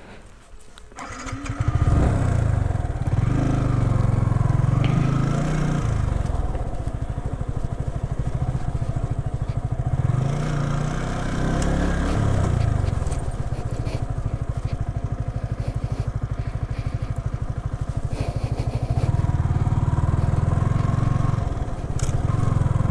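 Yamaha R15 V3's 155 cc single-cylinder engine heard from the rider's seat at low speed on a rough dirt road. It swells in about a second in, then runs with the throttle rising and falling several times.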